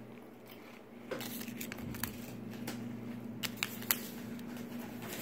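Small plastic parts bag crinkling and crackling as it is handled, irregular crackles starting about a second in with three sharper ones close together later, over a steady low hum.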